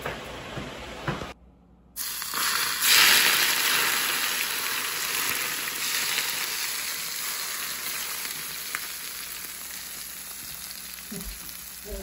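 Smoking-hot oil poured from a wok over boiled beef topped with dried red chilies, Sichuan peppercorns and cilantro, sizzling as it hits the spices. The sizzle starts about two seconds in, is loudest at first and slowly dies away; a few light clicks come before it.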